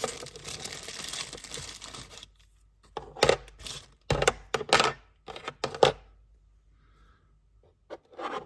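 Plastic packaging crinkling as a small replacement part is handled, then a series of sharp clicks and taps from handling it.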